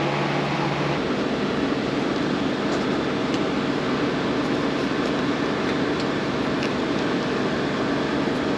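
A fan running steadily with a whirring noise and a low hum. The hum's pitch shifts about a second in, and a few faint clicks sound over it.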